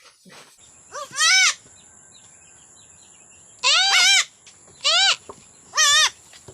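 Newborn goat kids bleating: four high-pitched bleats with a wavering pitch, a couple of seconds apart, with a faint steady high-pitched insect drone underneath.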